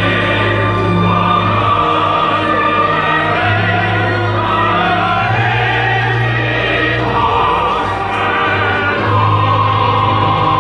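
Orchestral music with choral singing, relayed over outdoor loudspeakers, with sustained low notes that change every second or so.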